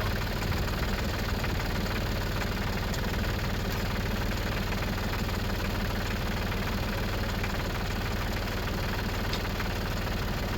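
New Holland compact tractor's diesel engine idling steadily.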